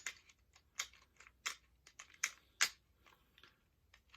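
Sharp plastic clicks at irregular intervals: a Hasbro Beyblade launcher being pushed onto a Beyblade top that won't lock on.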